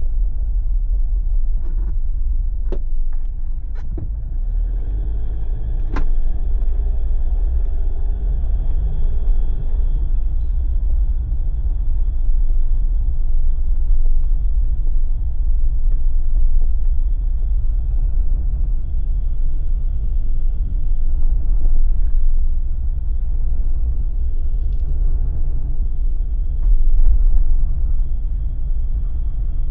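Jeep driving, with a steady low rumble from the vehicle and road. A few sharp clicks or knocks come in the first six seconds.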